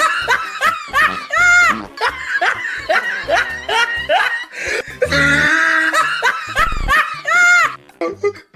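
Looped laughter track over music: a person laughing in short, high, rising and falling bursts. The same stretch of laughter repeats about five seconds later, and a brief low rumble comes near the end.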